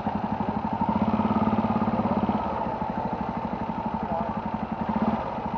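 Motorcycle engine running steadily at low revs, with an even firing beat.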